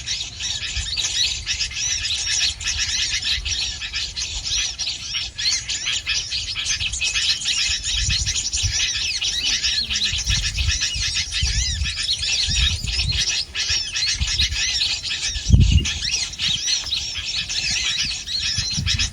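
Many small birds chirping in a dense, continuous chatter of short high calls, with a few low thuds, the loudest about fifteen seconds in.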